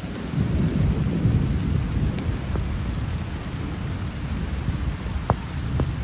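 Steady rain with a low rumble of thunder that swells about half a second in and eases off over the next two seconds; a few single drops strike close by near the end.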